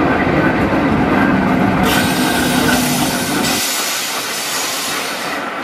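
Heritage train passing close by on the District line, led past by the Metropolitan Railway's Metro-Vick electric locomotive No. 12: a low rumble of wheels on rails, with a loud hiss starting about two seconds in. The rumble drops away just after halfway as the locomotive goes by, and the hiss fades near the end.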